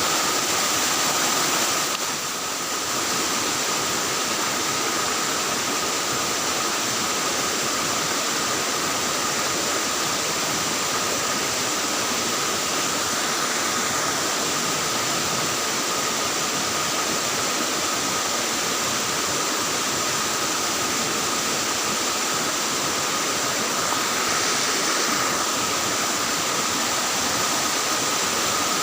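Steady rush of flowing stream water, with a faint, thin high tone held throughout.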